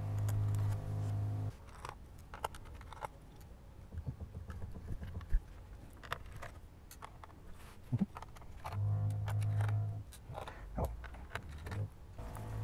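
A drill running in bursts in a neighbouring flat, a steady low hum: on for about a second and a half at the start, again about nine seconds in and near the end. Between the bursts, small clicks and scrapes of a pry tool working the laptop's bottom cover loose along its edge.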